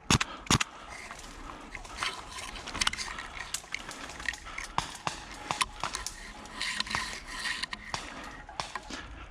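Two sharp airsoft gun shots about half a second apart right at the start, then irregular rustling with scattered light clicks and taps.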